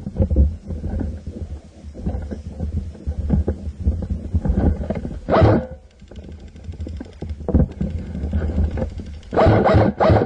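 Rumbling movement and wind noise on a camera mounted to an airsoft rifle, with a louder rushing swell about halfway through and again near the end.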